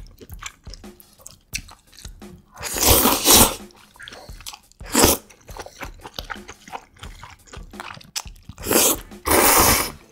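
Close-miked eating of spicy jjambbong noodle soup: soft chewing clicks, broken by four loud noodle slurps about a second long, the last two back to back near the end.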